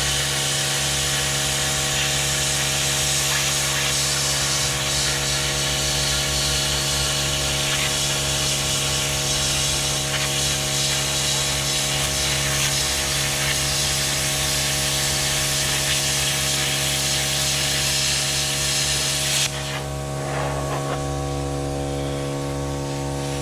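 Plasma cutter cutting through a steel truck frame: a steady hiss of the cutting arc and air over a steady electrical hum. The hiss cuts off suddenly about 19 seconds in, leaving the hum of the machine running.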